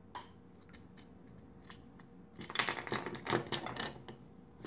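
Plastic toys being handled and moved: a couple of single clicks, then about halfway in a burst of rapid clicking and rattling lasting a second and a half or so.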